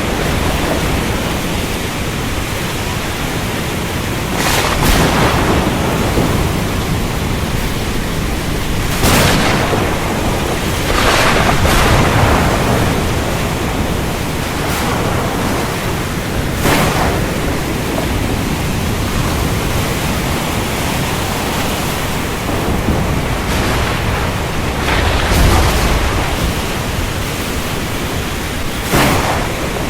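Steady rain over a low thunder rumble, with sharp thunder cracks breaking through every few seconds.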